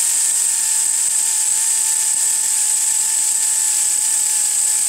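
Pneumatic air ratchet running continuously with a steady hissing whine as it backs out the alternator mounting bolt.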